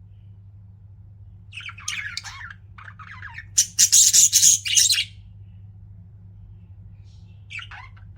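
Pet budgerigars chirping and chattering in a quick run of calls, loudest a little before the middle, then a single short call near the end.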